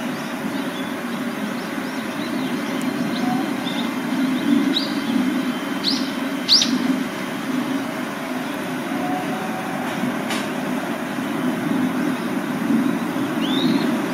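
Several short rising bird chirps over a steady low rumble.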